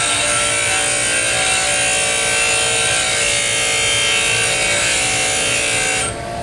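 DeWalt bench grinder wheel grinding the side of a steel lathe threading bit: a steady, loud grinding hiss over the motor's hum, shaping the bit's 60-degree point. The grinding stops suddenly near the end as the bit is lifted off, and the grinder motor keeps running.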